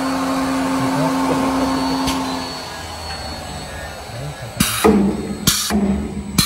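Acrylic edge polishing machine running with a steady motor hum that stops about two and a half seconds in. Near the end come three short, loud hisses of air, about a second apart, from the machine's pneumatic clamps releasing.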